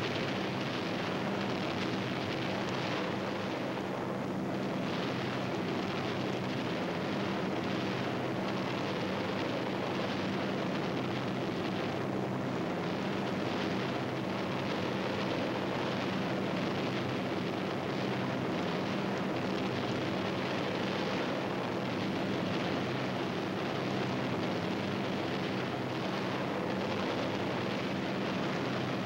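Steady, unbroken drone of aircraft engines, low and even in level throughout.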